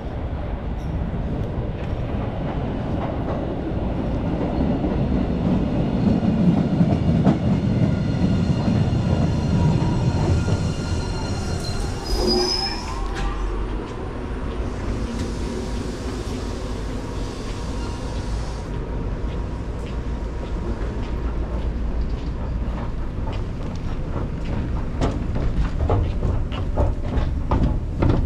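Blue Line subway train in the underground station: a rumble that builds with a steady high wheel whine, a falling squeal about twelve seconds in, then a hiss for about four seconds. A run of sharp clicks comes near the end.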